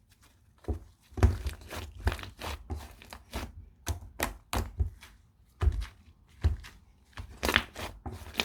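Slime made with hand soap being pressed and squeezed by hand, giving irregular sticky pops and clicks with soft thuds, about two a second.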